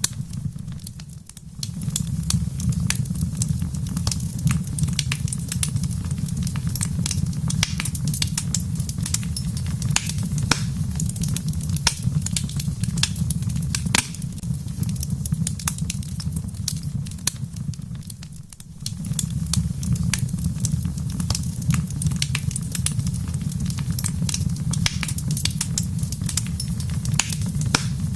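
Wood fire in a fireplace crackling, with frequent sharp pops over a steady low rumble; the sound briefly dips twice, about a second in and at about 18 seconds.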